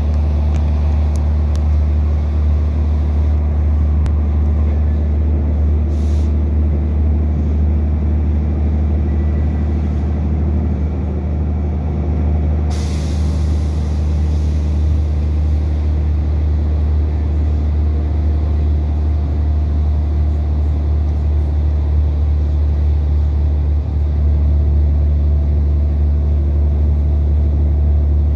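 Inside an Irish Rail 2800 class diesel multiple unit on the move: a steady low drone from the railcar's diesel engine under the running noise of wheels on rail. A short hiss of air comes about halfway through and fades.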